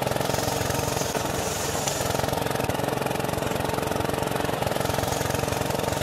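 Small motor of a miniature rice mill running steadily as paddy rice is milled and poured out down its chute.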